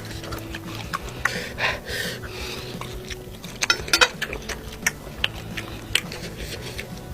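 Close-miked eating of bakso meatball soup: chewing with wet mouth sounds and breathing, and a run of sharp clicks and crunches, densest a little over halfway through.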